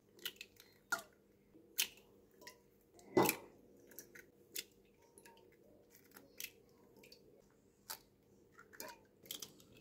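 Raw eggs being cracked open by hand one after another, their shells snapping and crunching as they are pulled apart: a quick series of sharp cracks and clicks, the loudest about three seconds in.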